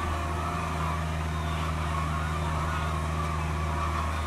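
CAT 305.5E2 mini excavator's diesel engine running steadily under working load, with a higher whine that wavers as the hydraulics lift and swing the loaded bucket.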